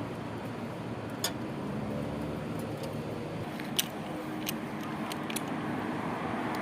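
Pressure washer (water jet machine) running steadily, its motor hum under the hiss of the spray, with a few sharp clicks over it.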